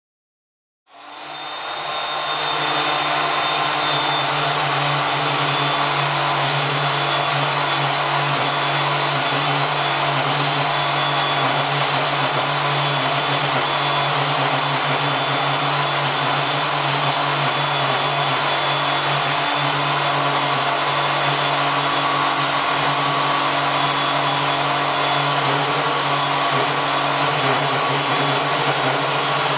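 A powered cutting tool starts up about a second in and runs steadily, with a constant hum and hiss.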